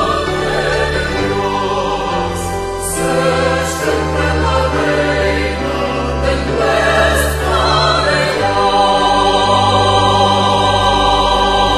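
Choir singing the final line of a Catholic hymn with instrumental accompaniment and a deep bass line, ending on a long held chord about two-thirds of the way through.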